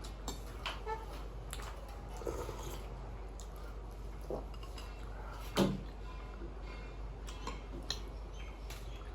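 Cutlery clinking against dishes: scattered light knocks and clinks, with one louder knock about five and a half seconds in.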